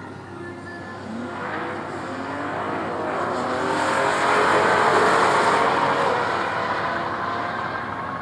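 Ford Fusion Sport's twin-turbo 2.7 L V6 at full throttle on a drag-strip pass, running through its stock OEM muffler. The car's sound swells to its loudest about five seconds in as it passes, then fades as it pulls away down the track.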